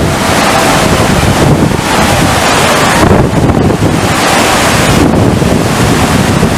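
Loud, steady rush of water from a FlowRider surf simulator, its pumped sheet of water spraying across the ride surface, with wind buffeting the microphone.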